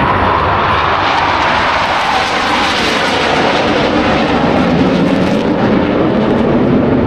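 Jet roar from a formation of KAI T-50 Golden Eagle jets, each with a single turbofan engine, flying past. There is a hissing edge for the first few seconds, then it deepens to a lower rumble as the jets move away.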